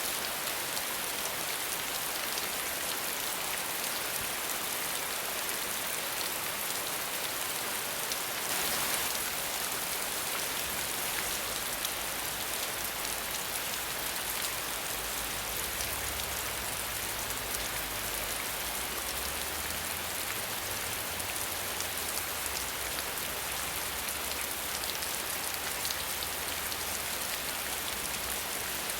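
Steady rain falling without thunder, a dense even hiss, briefly swelling heavier about nine seconds in.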